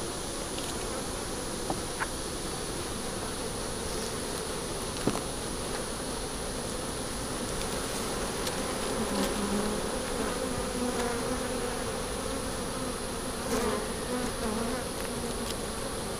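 Honeybees buzzing steadily around an open hive, the buzz growing somewhat louder past the middle as a frame covered in bees is lifted out. A few short, light knocks of the hive tool and wooden frames being pried loose.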